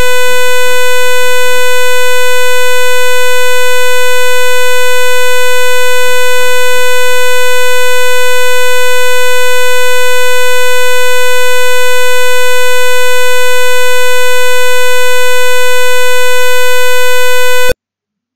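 Simulated buzzer in a Proteus ISIS circuit, played through the computer's sound output: a loud, steady buzz at one pitch with many overtones. It is switched on by the microcontroller's second-button function and cuts off suddenly near the end.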